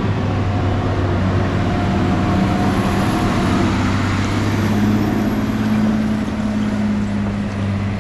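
A heavy flatbed crane truck driving past on a gravel road, its diesel engine running steadily under a wide rush of road noise.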